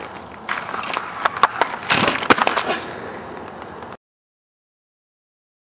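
Inline skates rolling on a hard court, with a run of sharp clacks, knocks and scrapes as the rollerblader jumps onto the tennis net to grind it. The sound cuts off to dead silence about four seconds in.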